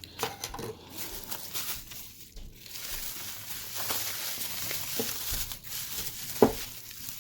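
Packaging crinkling and rustling as it is handled and pulled open, with small clicks and one sharp knock about six seconds in.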